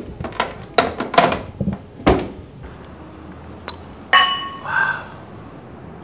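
A wine glass and a whisky tumbler clinking together in a toast about four seconds in, ringing briefly after the strike. Before it come a few sharp knocks and clatters.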